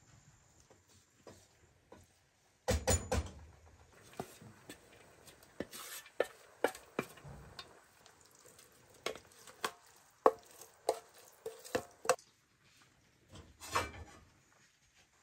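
Cooking utensils knocking and scraping against pots and pans as a bean-and-vegetable mixture is stirred and spooned onto rice in a pot. There is a cluster of heavier knocks about three seconds in, then a run of sharp separate taps, and a short rustling burst near the end.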